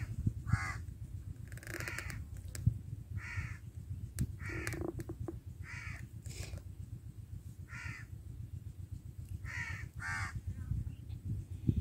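A bird calling over and over: about eight short calls, one every second or two, over a low steady rumble of wind on the microphone, with a couple of faint clicks.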